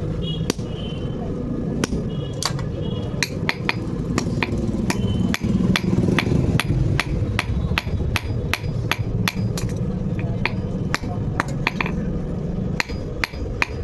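Blacksmith's hammer striking metal on an anvil in forging, a long run of blows at about three a second, uneven in spacing, some ringing briefly. A steady low hum runs underneath.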